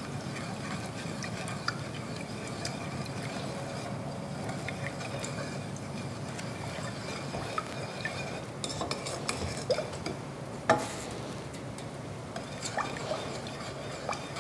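Wooden spoon stirring liquid in a stainless steel pot on a gas hob, with small scrapes and taps against the pot over a steady low hum. A sharper knock comes about ten and a half seconds in.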